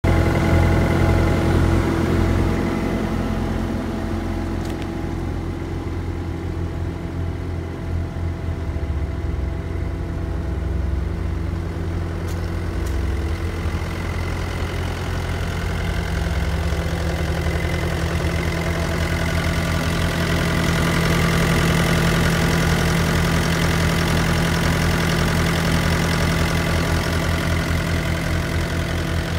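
Bobcat T870 skid steer's Kubota turbo diesel engine running steadily, growing a little louder and brighter about two-thirds of the way in.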